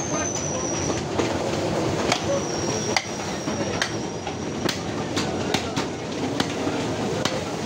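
Busy meat-market din: a steady clatter of scattered sharp knocks and clacks from butchers chopping on wooden blocks, under faint background voices. A thin high whine sounds through the first second and again from about two to nearly five seconds in.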